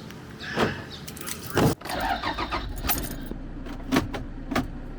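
Getting into a car: a car door shuts with a loud thud, keys jangle, and a car engine starts and runs with a steady low rumble, with a few sharp clicks near the end.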